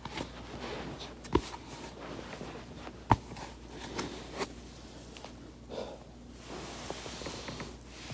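Joints cracking during foam rolling: two sharp cracks, one about a second and a half in and a louder one at about three seconds, with a few fainter pops and the rustle of a body shifting on a foam roller between them.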